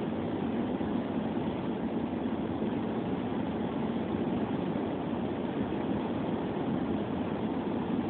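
Steady road noise inside a moving car driving on a wet road, an even rumble with no breaks.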